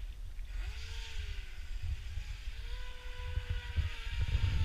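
Brushless electric motor of an Atomik Barbwire RC boat whining as it runs across the water, the pitch rising, holding and dropping as the throttle changes, over a hiss of hull spray and a low rumble.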